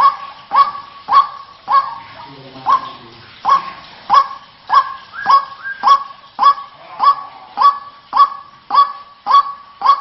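White-breasted waterhen calling: a harsh, loud 'wak' note repeated steadily about every 0.6 seconds, with the rhythm slowing briefly about two to three seconds in.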